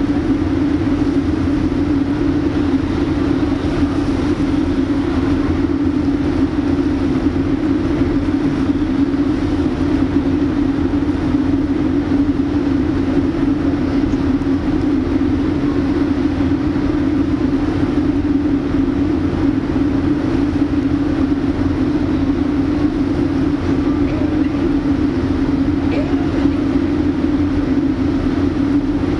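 A loud, steady machine drone with a strong constant hum over a low rumble, unchanging throughout.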